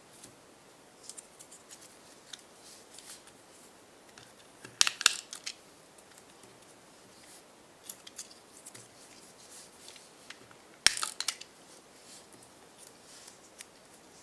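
Noisy hand-held double-sided tape dispenser clicking and rattling as tape is pulled off and pressed down, with two louder bursts about five and eleven seconds in and light paper rustles and taps between.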